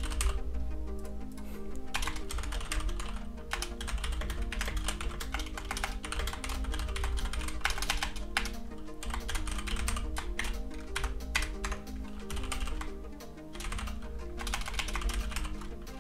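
Typing on a computer keyboard: quick, irregular runs of key clicks with short pauses between them, over background music with a repeating melody.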